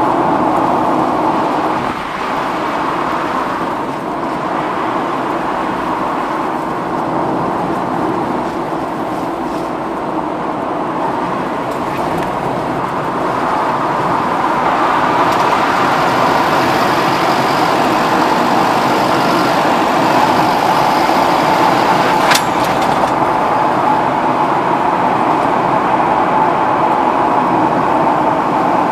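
Steady road and engine noise of a car cruising on an expressway, heard from inside the cabin by a dashcam. There is one short click about three-quarters of the way through.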